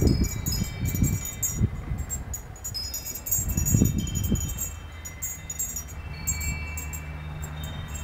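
Wind chimes, among them a small glass furin wind bell, tinkling in the breeze: many quick clinks with ringing tones. Gusts of wind rumble on the microphone, easing off about halfway through.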